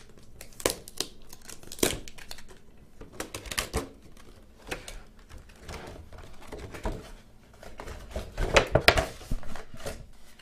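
Cardboard box and packaging being opened and handled by hand: rustling and crinkling with scattered clicks and knocks, busiest and loudest near the end.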